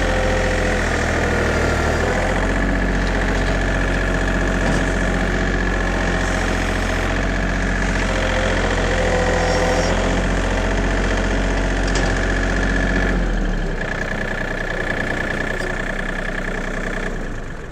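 John Deere 2032R compact tractor's three-cylinder diesel engine running steadily under work while back dragging fill over a trench. It eases off a little about three-quarters of the way through and drops away near the end.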